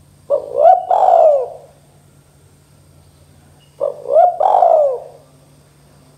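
Spotted dove cooing: two three-part calls about three and a half seconds apart, each a short note followed by two longer coos that bend up and fall away.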